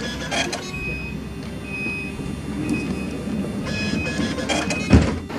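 Paris tram running with a steady low rumble heard from inside the car. Over it come a series of short high electronic beeps, a few clicks, and a single loud thump about five seconds in.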